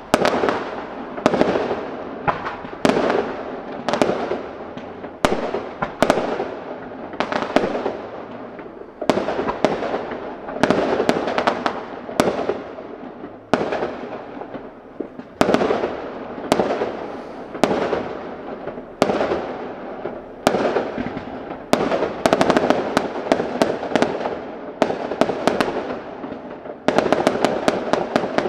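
Aerial fireworks bursting one after another, about one sharp bang a second, each trailing off in an echo. Near the end comes a rapid string of bangs.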